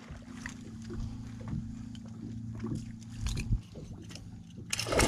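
A boat's motor running with a steady low hum, with a few faint knocks. A sudden loud rush of noise breaks in near the end.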